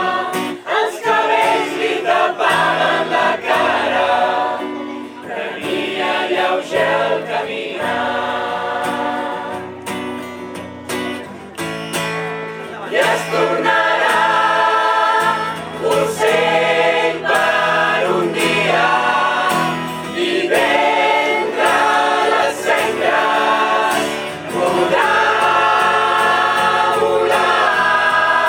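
Choir singing a song in parts, softer through the middle and full again toward the end.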